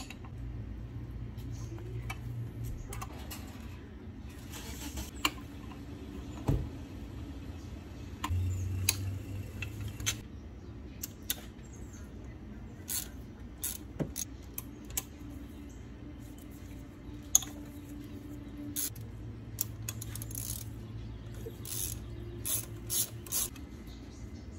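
Ratchet wrench clicking and metal tools clinking while loosening the fuel rail fittings on a diesel V6, in scattered clicks with a quicker run of clicks near the end.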